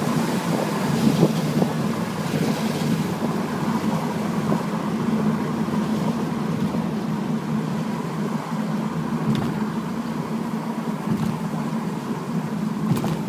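Car driving on a wet road, heard from inside the cabin: a steady low engine and road drone with the hiss of tyres on wet tarmac, the hiss easing after the first few seconds. A few light knocks and clicks.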